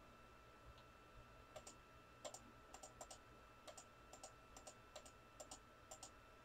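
Faint, quick clicks from a computer, mostly in close pairs, about a dozen between roughly a second and a half in and near the end, over a faint steady tone.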